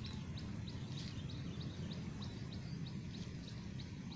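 Open-air background noise: a steady low rumble, with a small bird's short high chirp repeating about four times a second.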